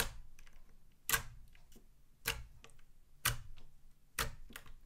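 Fingers poking and pressing a thick, putty-like green slime, giving sharp clicking pops as trapped air is pushed out, the loudest about once a second with fainter crackles between.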